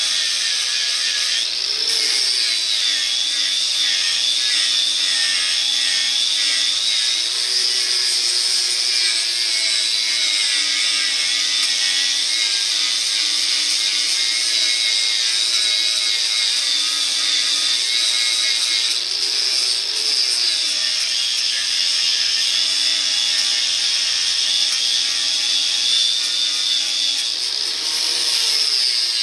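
Angle grinder grinding a weld flush on a steel truck frame, the motor running steadily under load over a hissing grind. Its pitch rises briefly a few times as the disc eases off the metal, then settles back.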